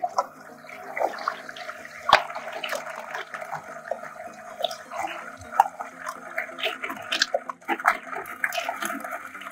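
Water running steadily into a toilet bowl from under the rim, with plastic ball-pit balls knocking against each other and the ceramic bowl in many sharp clicks as they are handled.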